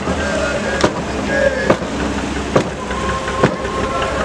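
Sharp wooden knocks a little more than once a second in a steady beat, the time-keeping of a chundan (Kerala snake boat) crew rowing in, over voices and a low motor hum.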